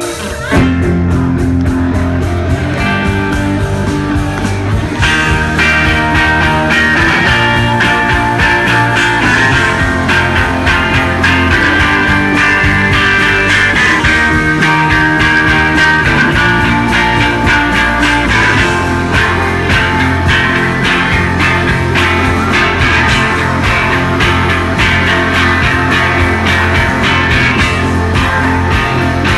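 Live rock band playing loud, with electric guitar over bass and drums; the full band comes in about half a second in.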